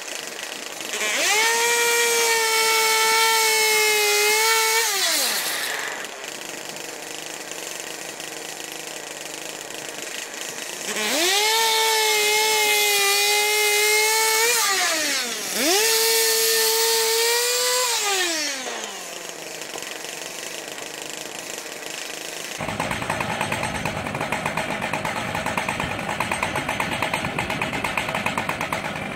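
Chainsaw powerhead driving an M6 Turbosawmill circular blade, revving to full throttle and falling back to idle three times as it makes cuts through an ash log. Near the end the sound changes to a rougher, rapidly pulsing engine noise.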